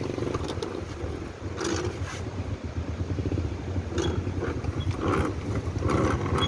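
A steady low engine rumble with brief snatches of voices.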